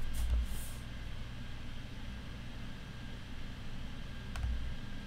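Room tone: a steady low hum with faint hiss, with a couple of faint clicks and soft low thuds near the start and about four and a half seconds in.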